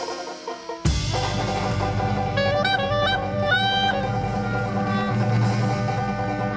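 Traditional New Orleans jazz band playing live, with brass and drums. The band drops out briefly, comes back in with a sharp hit about a second in, and a horn plays melodic runs over sustained chords.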